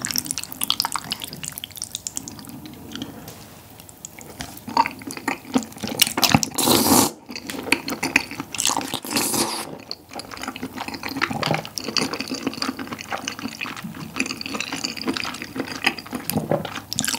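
Close-miked wet eating sounds: chopsticks in saucy tteokbokki, chewing and lip smacks, with a couple of longer slurps of sauce-coated glass noodles in the middle.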